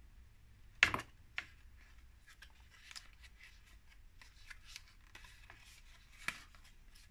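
Paper crinkling and rustling as a small glued paper box piece is handled and folded by hand, with a sharp tap about a second in, a smaller one just after, and another near the end.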